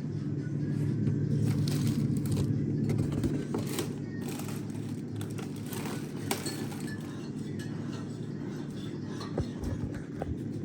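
Frozen food packages rustling and knocking as they are handled and stacked in a deep freezer. A steady low hum runs underneath, and the handling noises are busiest in the first few seconds.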